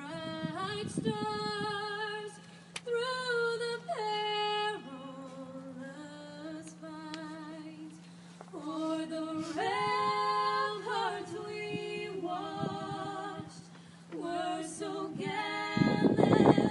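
A woman singing solo and unaccompanied, holding long notes with vibrato, over a steady low hum. A loud rush of noise comes near the end.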